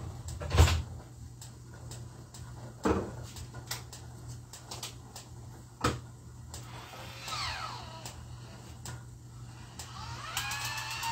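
Scattered kitchen knocks and clatter over a steady low hum, the loudest knock about half a second in and two more near three and six seconds. A melody begins just before the end.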